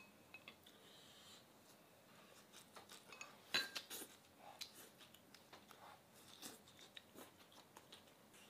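Faint eating sounds from chopsticks and shredded eel: light clicks and taps, a short cluster of sharper slurping sounds about three and a half seconds in as strands are sucked into the mouth, then soft chewing.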